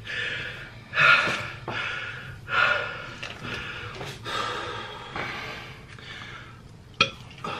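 A man breathing hard and out of breath, with several loud breaths in a row. A single sharp click comes near the end.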